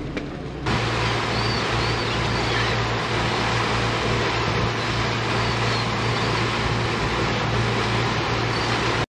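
A 1999 Carver 504 motor yacht underway: its engines run with a steady low hum under the rush of the churning wake and wind. A few faint gull cries come over the top.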